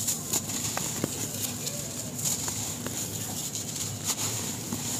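Dry sand-cement lumps crunching and crumbling in the hands, with loose grains pouring and pattering down into dry sand: a run of small crisp crunches and ticks.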